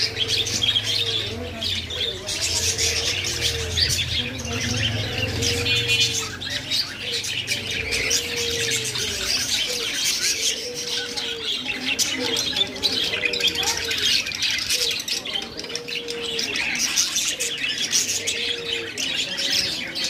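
A flock of budgerigars chattering and chirping continuously, many warbling calls overlapping. Underneath, a lower arched call repeats about once a second.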